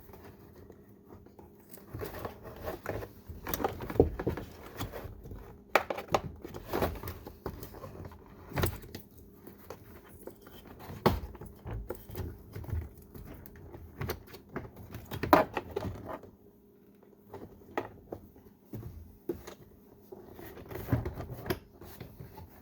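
Irregular light knocks, clicks and rattles as a car's plastic interior door trim panel is handled and fitted back onto the door, its wiring fed through.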